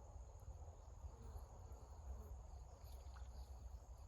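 Faint, steady high-pitched insect chirring, typical of crickets, over a low steady rumble.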